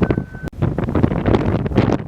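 Blizzard wind gusting hard against the microphone, with a brief dropout about half a second in.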